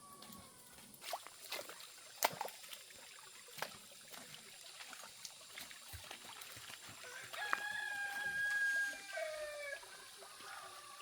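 A rooster crowing: one long call about seven seconds in, held steady, then dropping in pitch at the end. Several sharp knocks come before it.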